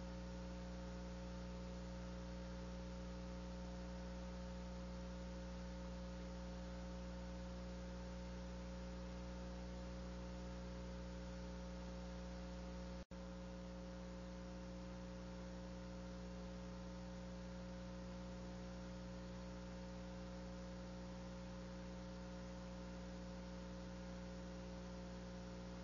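Steady electrical hum with hiss on an otherwise empty sound channel, made of several steady tones stacked together; it drops out for an instant about halfway through.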